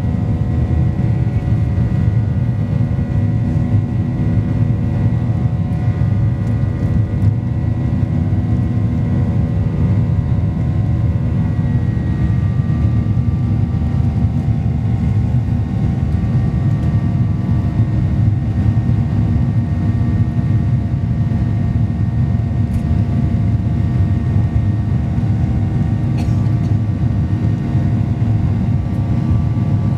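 Boeing 737-800 cabin noise from a rear window seat: the CFM56 jet engines running steadily, a dense low rumble with several steady whining tones above it. The pitch of the tones shifts slightly about twelve seconds in.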